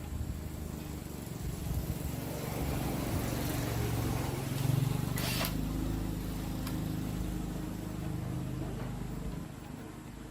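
Small gasoline engine running steadily, growing louder over the first few seconds and then dying away near the end, with one sharp click about halfway through.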